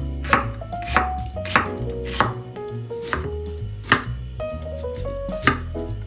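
Kitchen knife slicing through an onion onto a wooden cutting board, about eight crisp cut-and-knock strokes at an uneven pace.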